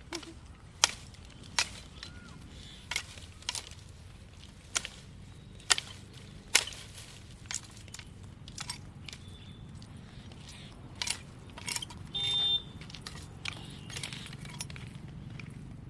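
Firewood being chopped from a woody shrub with a hand-held cutting tool: sharp, irregular blows of the blade into the wood, roughly one a second.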